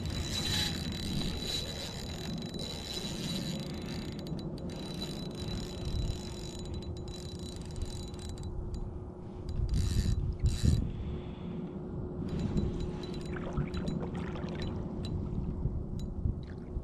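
Fishing reel being cranked, its gears whirring and clicking steadily as line is reeled in against a hooked fish on a bent rod. A few louder low thumps come about ten seconds in.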